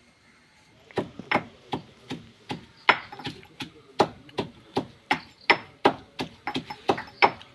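Rhythmic pounding strikes, about three a second and starting about a second in: roasted dried red chillies being crushed into a coarse powder with a pestle.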